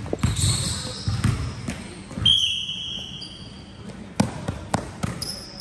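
Basketballs bouncing on a gym floor, with repeated sharp knocks, the loudest about four seconds in and again half a second later, and many short high squeaks. A single high steady tone sounds briefly about two seconds in.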